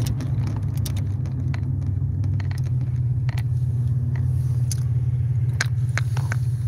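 Steady low rumble of a car's engine and road noise heard inside the cabin, with a few scattered small clicks.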